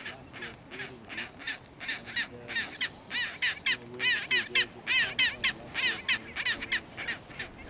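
Chinstrap penguins calling: a rapid run of short, repeated honking calls, about three to four a second, building to loudest in the middle and fading near the end.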